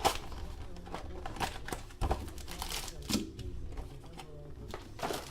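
Handling of a trading-card box and its packs: a scattered run of clicks, taps and light rustles, loudest just at the start and about two seconds in.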